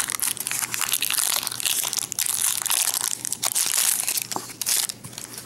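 Clear plastic wrapper crinkling and crackling as hands unwrap a small toy from a plastic capsule; the crackling dies down near the end.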